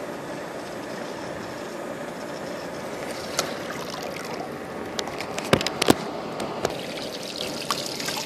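An Attwood Sahara 500 GPH automatic bilge pump, submerged, starting to pump: water begins pouring and splashing out of its discharge hose near the end, with two sharp knocks a little past the middle.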